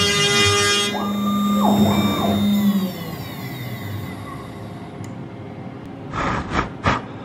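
CNC router running a test cut in MDF: the spindle whines while the stepper motors sing tones that ramp up and down in pitch as the axes move. About three seconds in it drops to a quieter steady whir, and near the end there are a couple of sharp knocks.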